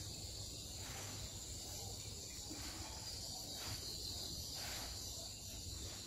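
Steady high-pitched chirring of an insect chorus, crickets or similar, unbroken throughout.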